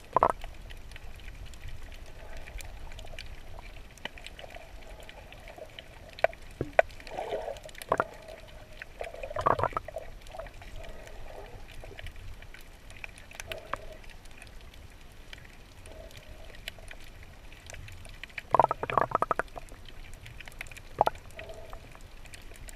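Underwater sound picked up by a submerged camera: a steady muffled rush with scattered sharp clicks, and bubbly gurgles twice, about ten seconds in and again near nineteen seconds.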